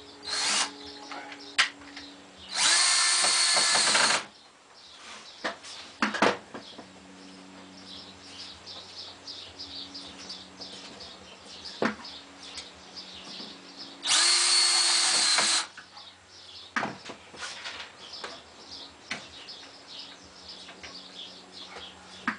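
Screw gun driving screws into the trailer's wooden framing through pocket holes, in two runs of about a second and a half each plus a short burst near the start. Sharp clicks and knocks of handling the wood and tool fall in between.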